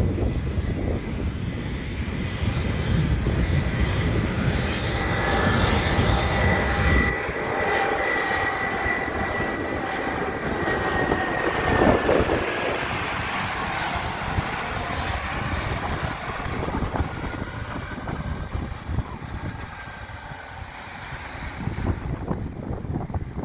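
Airliner's engines passing by: a steady engine whine and rush whose tones slowly fall in pitch, loudest about halfway through. Wind rumbles on the microphone for the first several seconds.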